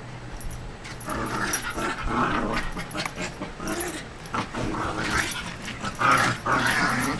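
Small dogs at play, growling and yipping in short rough bursts, loudest about six seconds in.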